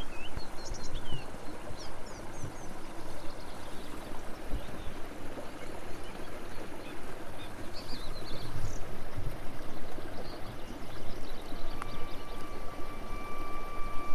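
Small songbirds chirping and twittering faintly over a steady rushing background noise. Near the end a steady, even tone comes in and holds.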